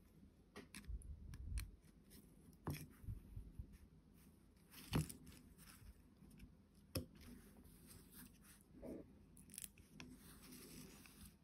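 Faint handling noises as fingers work a small battery connector and a flat lithium-polymer battery pouch on a circuit board: soft rubbing and crinkling with a few small sharp clicks, the clearest about five and seven seconds in.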